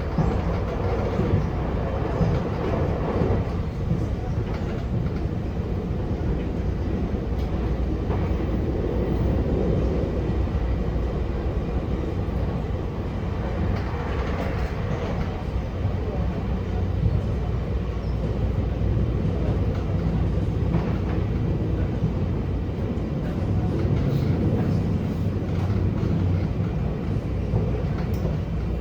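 Taiwan Railways EMU800 electric multiple unit running at speed, a steady rumble of wheels and running gear on the rails heard from inside the passenger car.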